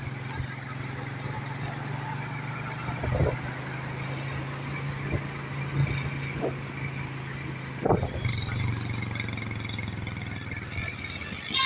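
Road traffic heard from a moving vehicle: a steady engine hum and road noise, with a few brief knocks. A car horn sounds right at the end.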